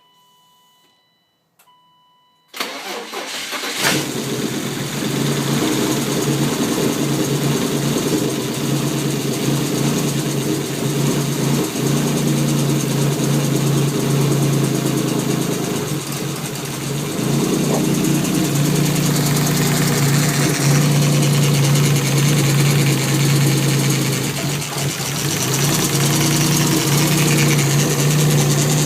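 BMW E36 M3 inline-six engine cranking briefly and catching, then idling unevenly with dips in its running: a rough idle from a bad misfire. Two short beeps come just before the start.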